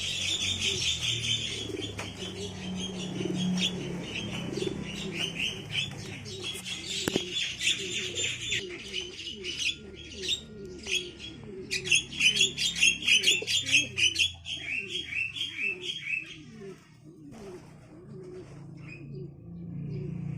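Domestic pigeons cooing over and over, under a stream of rapid, high chirping from Javan mynas. The chirping thins out between about eight and eleven seconds in, returns, and stops about four seconds before the end, leaving only the cooing.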